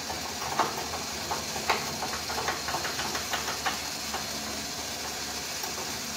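CFMOTO CForce 800 XC's V-twin engine idling steadily with a hiss, with a run of light clicks and ticks between about half a second and four seconds in.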